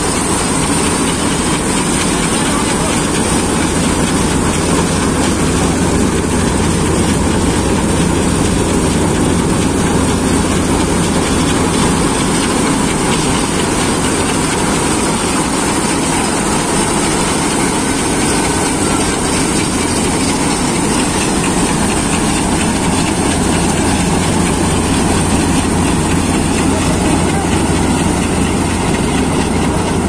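Jaswant self-propelled combine harvester running while harvesting wheat: its engine and threshing machinery make a loud, steady mechanical noise with a constant high-pitched whine over it.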